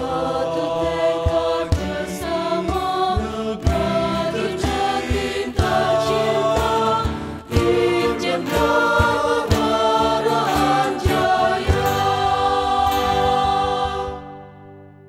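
Mixed choir of sopranos, altos, tenors and basses singing an Indonesian march in harmony, backed by strummed acoustic guitars and a cajón keeping the beat. Near the end the singers hold a final chord that fades away.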